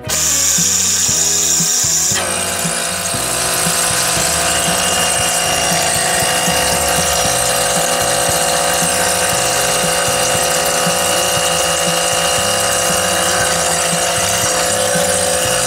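Small handheld electric transfer pump running steadily, pumping old power steering fluid out of a semi truck's reservoir. Its tone changes about two seconds in.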